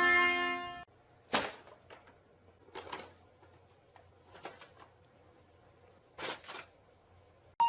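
A few scattered single knocks in a small room over faint room noise, after a short bit of music that cuts off abruptly under a second in.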